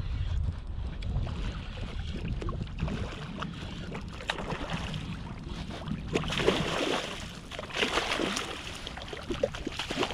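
A hooked fish thrashing and splashing at the water's surface as it is reeled in close, several splashes from about six seconds in. Wind rumbles on the microphone, mainly in the first half.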